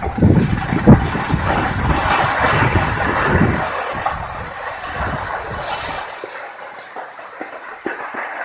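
Snowboard sliding over packed snow: a steady scraping hiss with low rumbling knocks that die away about six seconds in, leaving a softer high hiss.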